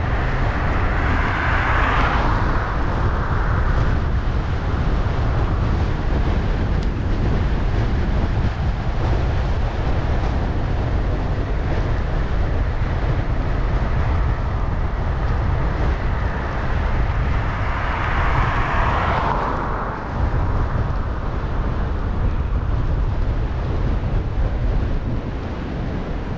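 Wind rushing over the microphone of a GoPro Hero8 on a moving bicycle, a steady low rumble. Twice a brighter hiss swells up, at the start and again near the end, and cuts off suddenly.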